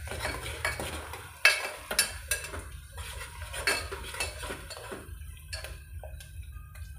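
Stainless steel slotted spoon scraping and clinking against the inside of an aluminium pressure cooker while stirring onions, green chillies and whole spices sautéing in oil. There is a quick run of scrapes and taps that eases off after about five seconds.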